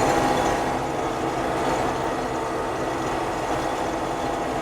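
Combine harvester running steadily while cutting wheat: a constant mechanical drone with several steady hum tones over a rumbling low end.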